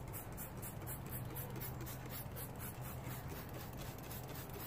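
Trigger spray bottle spraying foaming whitewall tire cleaner onto a tire's sidewall, over a low steady hum.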